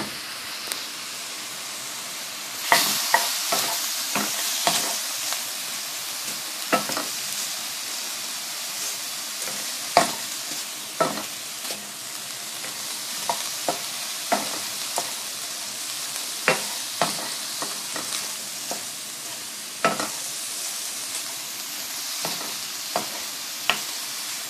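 Shrimp sizzling as they flash-fry in hot oil in a nonstick wok, stirred and turned with a wooden spatula that knocks and scrapes against the pan in frequent sharp taps. The sizzle grows louder about three seconds in as the stirring starts.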